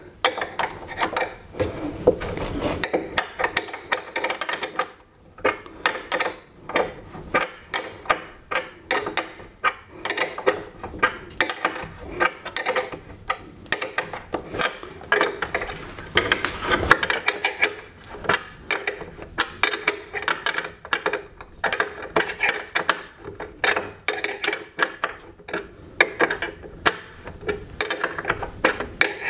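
Small stamped steel wrench clicking against a nut again and again, a few clicks a second, as lock nuts fastening a TV to a wall-mount bracket are turned a little at a time by hand, without a ratchet.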